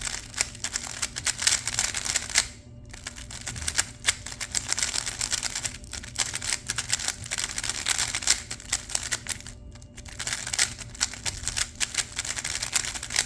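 GAN 11 M Pro speedcube being turned by hand: a dense run of quick plastic clicks and clacks from its turning layers, with short pauses about two and a half seconds in, near six seconds and near ten seconds.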